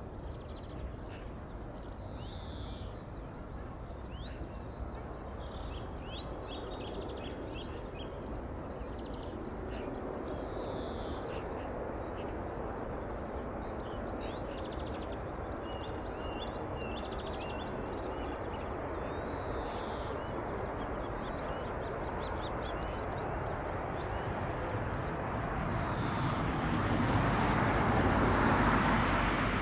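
ATR 72-600 twin-turboprop on approach to land. Its engine noise grows steadily and is loudest near the end. Small birds chirp throughout.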